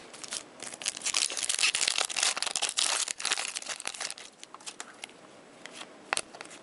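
A hockey card pack wrapper crinkling and rustling as it is handled and opened, dense for a few seconds, then giving way to a few light clicks and rustles of cards being handled.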